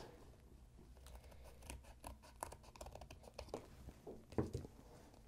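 Small scissors cutting through thin card stock: a series of faint snips and clicks as a piece is cut out of a cardboard trading card.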